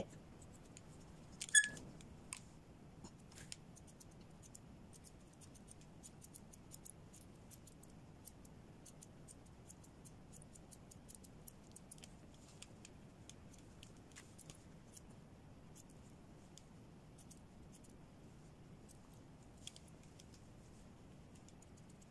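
Steel grooming scissors snipping through a Samoyed's thick white coat: a long, irregular run of faint, crisp snips, with one louder click about one and a half seconds in.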